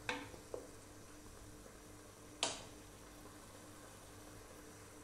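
A faint steady hum, with a few light knocks of a wooden spatula against the cooking pot; the sharpest knock comes about two and a half seconds in.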